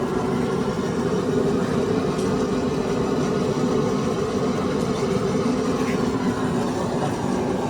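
A steady mechanical drone with a constant pitch and no breaks or rhythm.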